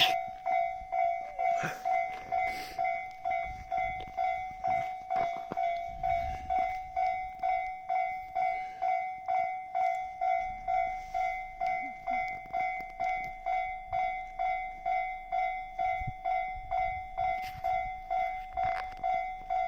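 Railway level-crossing warning bell ringing in a steady, even ding-ding rhythm, about two strikes a second. A passing train rumbles low beneath it at times.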